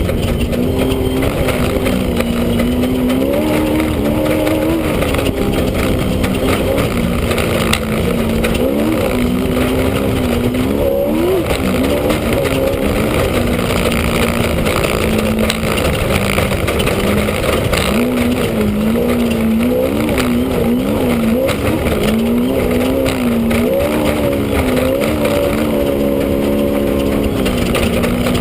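Off-road race vehicle's engine heard from inside the cab, running hard under a steady rushing noise. Its pitch rises and falls repeatedly, with several quick up-and-down swings, as the throttle is worked over rough terrain.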